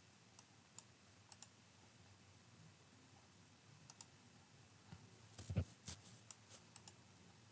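Faint computer mouse and keyboard clicks: a few scattered single clicks, then a quicker run of clicks about five and a half seconds in.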